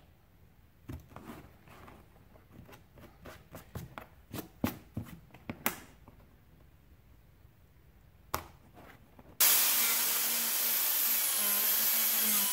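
Faint scattered clicks and scratches of fingers picking at cut plastic on a plastic toolbox lid. About nine seconds in, an air-powered right-angle cut-off tool starts up with a loud hiss and a wavering whine as it grinds at the plastic tabs.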